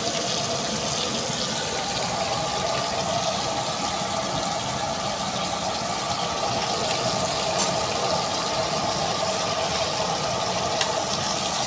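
Steady sizzle of chicken pieces frying in hot oil in a karahi, with the rushing roar of the gas burner underneath it.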